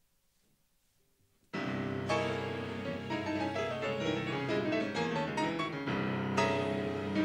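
Two grand pianos and a string chamber orchestra start playing all at once about a second and a half in, after near silence: fast, dense piano chords and runs, with a fresh loud accent a little after six seconds in.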